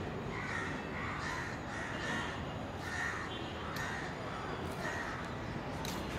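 Crows cawing, a run of short repeated calls about two a second.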